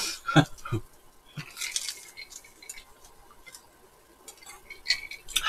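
Eating at a table: scattered clicks and clinks of dishes and cutlery, with chewing of crispy fried chicken.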